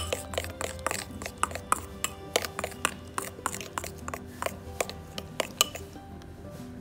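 A metal utensil beating egg in a ceramic bowl, clicking and clinking against the bowl about three or four times a second, over background music.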